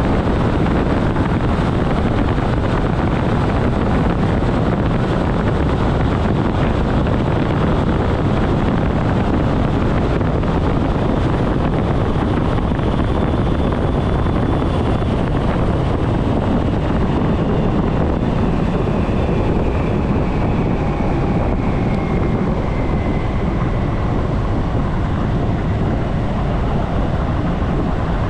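ÖBB 4024 Talent electric multiple unit running at speed, a steady rush of wheel-on-rail rumble and wind. From about halfway through, a faint whine falls in pitch as the train brakes from about 120 to 75 km/h.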